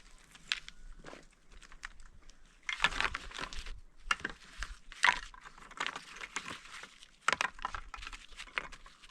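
A run of irregular crunches, scrapes and sharp knocks, with clusters about three, five and seven seconds in.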